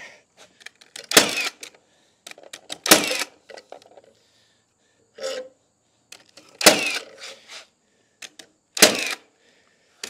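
Cordless framing nailer driving ring-shank nails into a laminated 2x12 wood header: four sharp shots, roughly two seconds apart, with light clicks and rattles of the tool between them.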